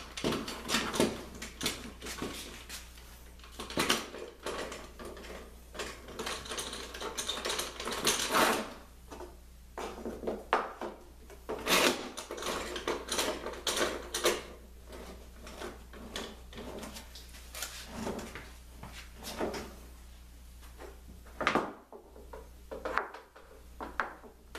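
Bar clamps being slid, set and tightened on a bent plywood lamination: an irregular string of clicks, clacks and short scrapes, busiest in the first half and around twelve to fourteen seconds in.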